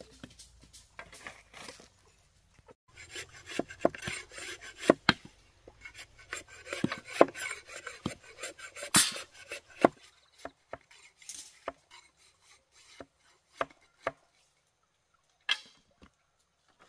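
Bamboo being worked by hand with a blade: irregular chopping knocks with scraping in between, busiest through the middle and thinning to a few separate sharp knocks near the end.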